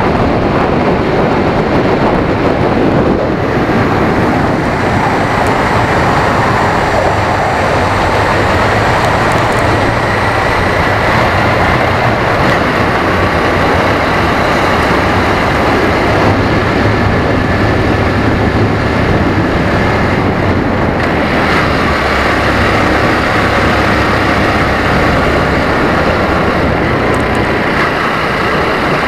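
Motor vehicle running steadily at road speed, its engine drone mixed with road and wind noise heard from a camera mounted on the vehicle.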